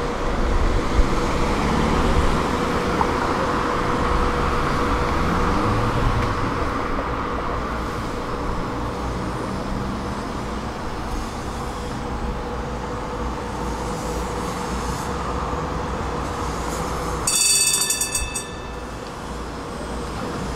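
Articulated Tatra KT4 tram rolling slowly past on street rails, its wheels and drive running with a steady hum that slowly fades. Near the end there is a short, high ringing sound.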